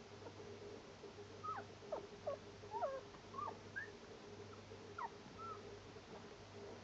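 Newborn puppy giving a string of short, high squeaks and whimpers, about a dozen over four seconds, starting about a second and a half in. A faint steady hum runs underneath.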